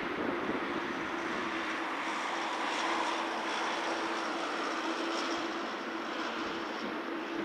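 Boeing 777-300ER's GE90 turbofan engines running at idle thrust while the airliner taxis: a steady jet rumble carrying a constant low hum and, in the middle, a faint high whine.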